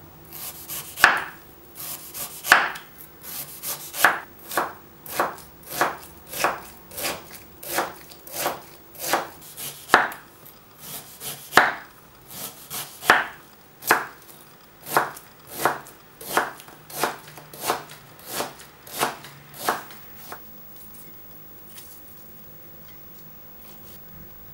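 Kitchen knife slicing through a peeled Korean pear and knocking on a wooden cutting board, about one cut every half second to second. The cutting stops near the end.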